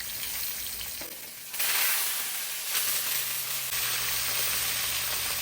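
Fish frying in hot oil in a covered frying pan, a steady sizzle that turns suddenly louder and brighter about one and a half seconds in, as the lid is lifted to check the fish.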